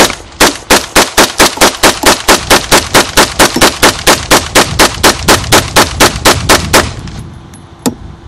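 AR-15-style rifle with a 3D-printed polymer lower receiver firing a rapid, even string of shots, about four a second, as a 30-round magazine is emptied. The shots stop about seven seconds in, and one sharp click follows about a second later.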